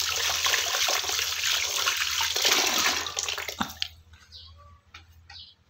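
Running water, a loud steady hiss that cuts off abruptly a little before four seconds in.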